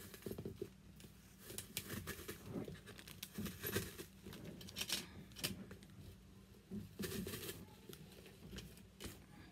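Purple crinkle-paper filler and cardstock cutouts rustling in a small metal party pail as cutouts on lollipop sticks are pushed in, with irregular light taps and clicks.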